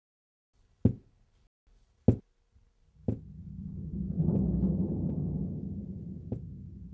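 Dramatic film-score music: three heavy drum hits about a second apart, then a low rolling drum rumble that swells and holds.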